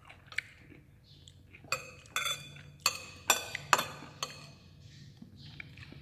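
Metal spoon clinking against ceramic dishes: a run of about six sharp clinks with a brief ring, between about two and four seconds in.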